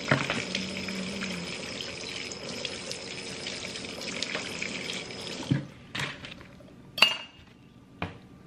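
Kitchen tap running steadily into a stainless steel sink while salmon is rinsed; the water is turned off about five seconds in. A few sharp knocks and clatters on the counter follow, the loudest about seven seconds in.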